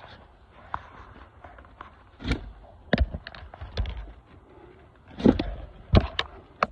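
Footsteps of a person walking on the ground: a run of three steps, then a pause, then two or three more steps near the end.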